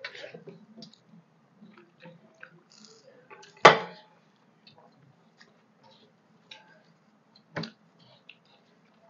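Eating rice and curry by hand from steel plates: scattered small clicks and taps of fingers and food against the metal. A sharp knock, the loudest sound, comes about three and a half seconds in, and a smaller knock about seven and a half seconds in.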